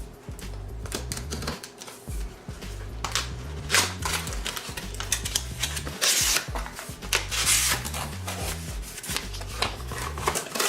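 Quick clicks, taps and rustles of a cardboard box and its packaging being opened and handled, over background music with a steady bass beat.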